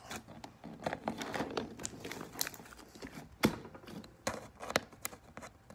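Hands kneading and pressing a large mass of thick white slime, giving irregular squishing and crackling pops, with one sharper pop about three and a half seconds in.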